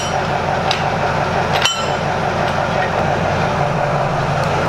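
Hydraulic floor jack being pumped under a truck, its steel handle and saddle giving three sharp metallic clinks that ring briefly in the first two seconds, over a steady mechanical hum.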